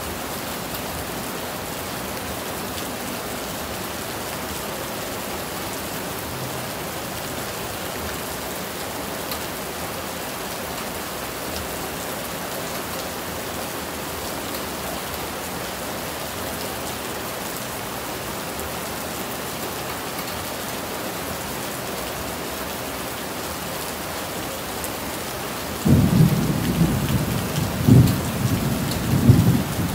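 Steady rain falling in an even hiss. Near the end, a loud low rumble of thunder breaks in suddenly and rolls on in uneven swells.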